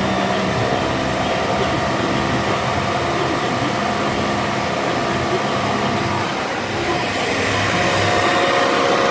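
Nissan X-Trail's worn wheel bearing droning as the car runs: a loud, steady airplane-like hum with several steady tones in it, growing a little louder after about seven seconds. The bearing is failing.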